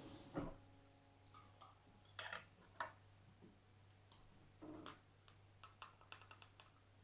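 Faint, scattered taps and small clinks of objects being handled, with one brief ringing clink just after the start and a run of quick light ticks in the second half.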